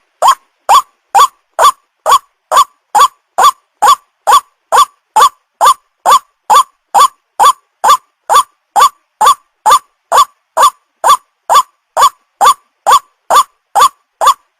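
White-breasted waterhen call used as a lure, a short note that rises in pitch, repeated evenly about twice a second.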